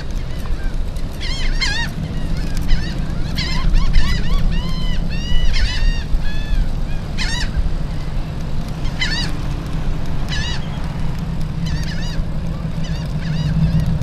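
Gulls calling again and again, in clusters of short arched notes, over a steady low rumble.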